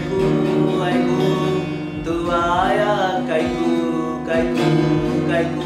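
Acoustic guitar being picked, its notes ringing on, with a voice singing over it.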